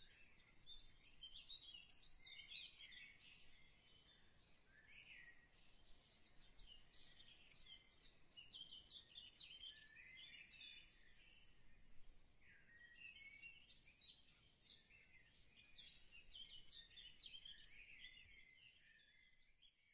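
Faint chorus of many small birds chirping and twittering at once, quick short calls overlapping throughout, fading out near the end.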